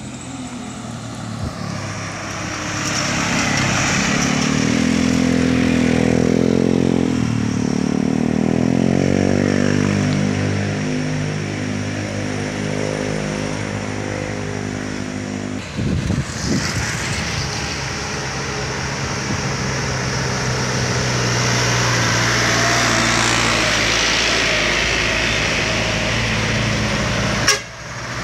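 Heavy diesel trucks working round a sharp bend, engines labouring with the pitch rising and falling as they change gear. The sound changes abruptly about 16 seconds in, then goes on as a steadier engine drone, with a sharp break near the end.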